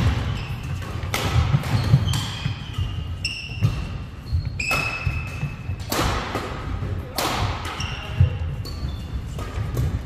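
Badminton doubles rally: rackets striking the shuttlecock in sharp cracks roughly once a second, with sneakers squeaking on the wooden court floor and footfalls thudding.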